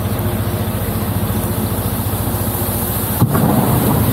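A tour boat's engine running steadily as the boat comes in to the pier. About three seconds in there is a sharp click, and the engine then gets louder and rougher.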